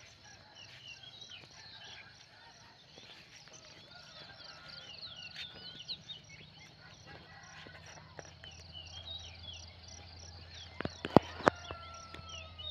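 Small birds chirping and twittering at dawn over a steady high drone of insects. About two-thirds of the way through, a few sharp clicks, the loudest sounds here, break in.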